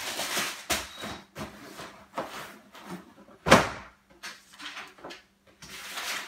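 Cardboard shoebox and tissue paper being handled, closed and set aside: a string of rustles and light knocks, with one louder knock about three and a half seconds in.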